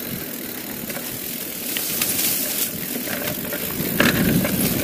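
Mountain bike riding fast down a dirt singletrack: tyres rumbling on the dirt and the bike rattling over bumps, mixed with wind noise on the rider-mounted camera's microphone. It gets louder about two seconds in as the pace picks up, with a burst of rattling clicks.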